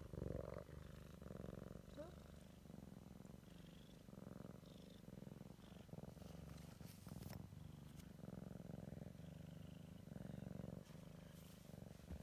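Cat purring steadily, swelling and easing with each breath about once a second.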